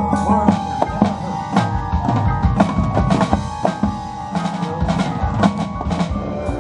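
Marching band percussion section playing a drum passage: snare drums with rolls and rim hits over deep bass drum strokes, with some held pitched notes underneath.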